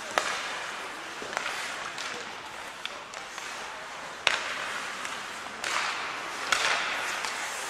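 Ice hockey play: skate blades scraping on the ice under sharp clacks of sticks and puck, coming every second or so, with the loudest about four seconds and six and a half seconds in.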